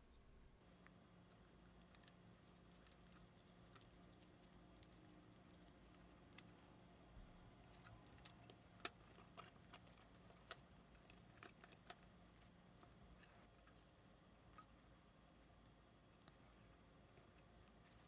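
Faint small clicks and taps of camera parts being handled with small tools during disassembly, busiest in the middle; otherwise near silence with a low hum.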